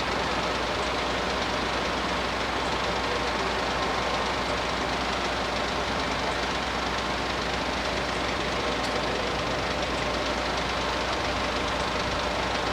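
Diesel train engine running steadily, an even mechanical hum with no change in level.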